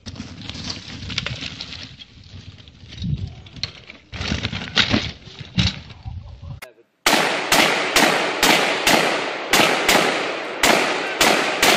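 Scuffling and knocks of a mountain bike and rider going down on a forest floor. About seven seconds in, after a brief silence, a loud rapid string of gunshots begins, about two or three a second, each with a short echo.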